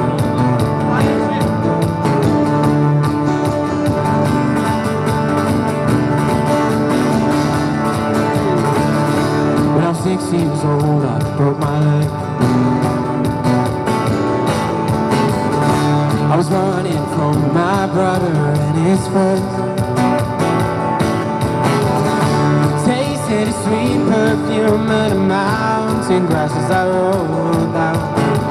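Two acoustic guitars strummed together with a man singing a pop song over them, amplified through a small street amp.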